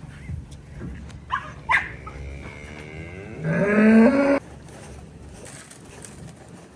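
A cow moos once, a loud call about a second long that rises in pitch, about three and a half seconds in. Two short sharp sounds come a couple of seconds earlier.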